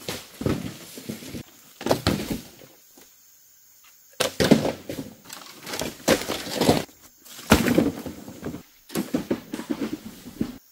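Footsteps crunching and rustling through dry leaf litter and bamboo undergrowth, coming in irregular bursts with short pauses, with a sharp knock about two-thirds of the way through.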